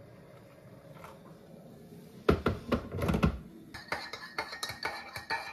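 A faint tail of hot water being poured into a ceramic mug. Then a cluster of heavy knocks about two seconds in as the kettle is handled and set down. From just before the four-second mark, a metal teaspoon stirs in the mug, clinking quickly and ringing against its sides.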